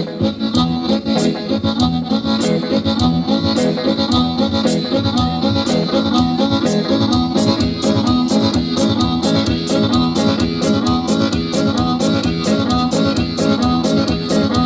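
A band playing an instrumental passage: a steady drum beat under guitar and a reedy free-reed lead line.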